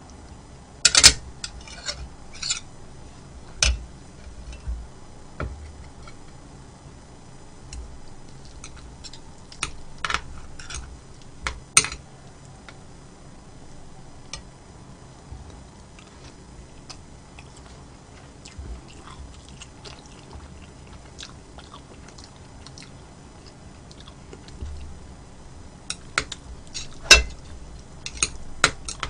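Close-miked eating sounds: soft chewing, with scattered sharp clicks and taps of utensils against a bowl. The clicks come in clusters near the start, around the middle and near the end.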